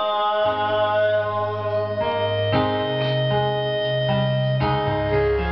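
Karaoke backing track playing an instrumental passage: held electronic keyboard chords in an organ-like tone, changing to a new chord every second or two.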